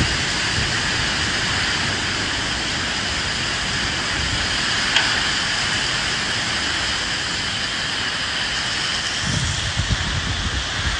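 Steady rain hissing, with wind. Low rumbling gusts swell near the end.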